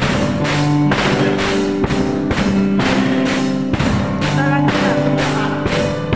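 A small band playing a song live: acoustic guitars strummed over a steady beat of about two strokes a second, with the chords changing every second or so.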